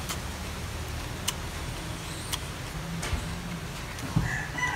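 A man chewing crispy fried chicken wings, with a few sharp mouth clicks and smacks about a second apart over a steady low hum. Near the end a rooster starts to crow.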